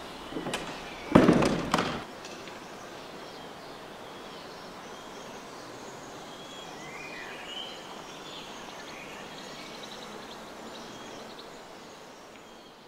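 Ambient sound-effects outro: a few sharp cracks in the first two seconds, then a steady hiss of noise with faint bird-like chirps around the middle, slowly fading near the end.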